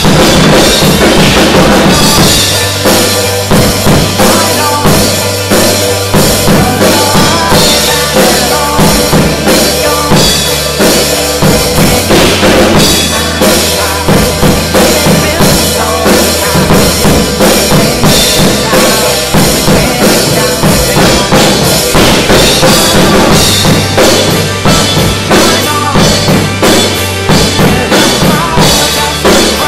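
Acoustic drum kit played hard and fast, kick and snare with frequent cymbal crashes, over the recorded instrumental of a pop-rock song.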